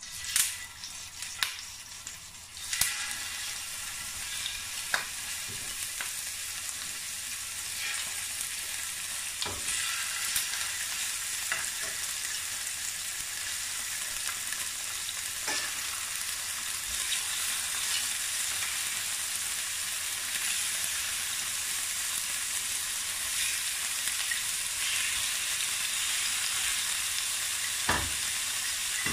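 Raw chicken pieces frying in hot oil in a stainless steel pan: a steady sizzle that sets in a few seconds in and grows louder as more pieces go in. Scattered light clicks as the pieces are placed with tongs.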